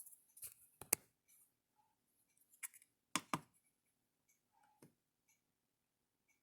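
A handful of light clicks and taps from handling a small pocketknife as it is set on a scale to be weighed, the sharpest about one and three seconds in.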